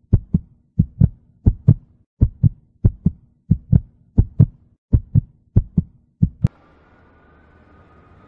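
Heartbeat sound: steady paired low thumps (lub-dub), about one and a half beats a second. It stops with a sharp click about six and a half seconds in, followed by a faint hum with a thin high tone.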